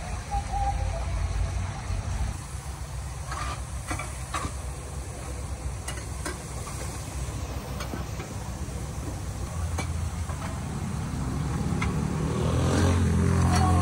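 Egg and noodles frying in oil in a large wok, with a metal spatula scraping and clicking against the pan a few times. Underneath runs a steady low rumble of street traffic, which grows louder near the end.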